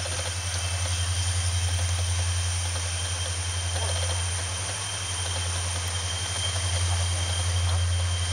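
Three EMD 16-645E3 turbocharged V16 two-stroke diesels (two SD40-2s and a GP40-2) working under heavy throttle as they accelerate a train. The result is a deep, steady, pulsing engine drone with a high steady turbocharger whine over it, swelling and easing slightly.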